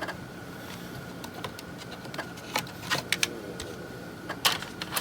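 3.5-inch floppy drive on a USB adapter: a faint steady whine with scattered light mechanical clicks, and a louder click near the end.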